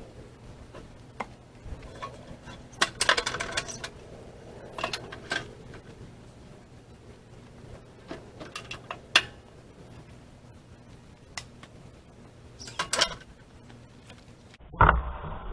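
Split firewood pieces knocking and clattering against each other as they are set onto a stack, in several separate bunches of knocks. A louder thump near the end.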